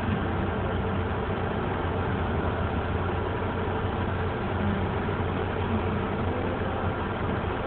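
A vehicle engine idling steadily, a low hum under a flat wash of noise.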